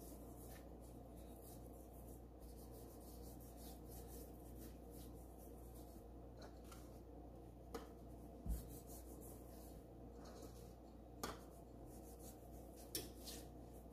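Faint hand rubbing dry seasoning into raw tilapia fillets on a cutting board: soft brushing strokes with a few light taps in the second half, over a steady low hum.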